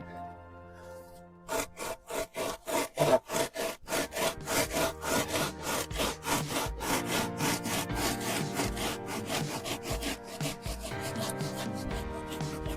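A wooden 2x4 screed board worked back and forth across wet concrete in quick, sawing strokes to level the slab, starting about a second and a half in. Background music plays under it.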